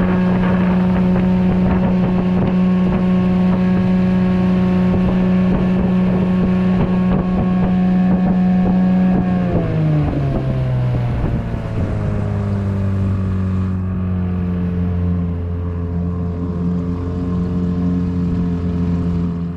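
Small 6 hp Evinrude outboard motor running steadily at high revs, pushing a jon boat on plane. About halfway through its note drops over two or three seconds and settles into a lower, steady run as the motor slows.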